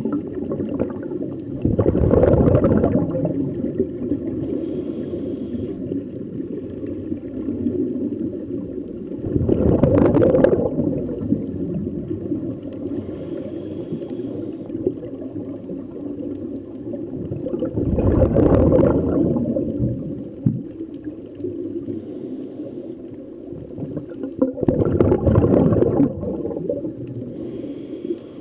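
Underwater recording of a scuba diver breathing through a regulator: four gurgling bursts of exhaled bubbles, about eight seconds apart, over a steady low underwater rumble.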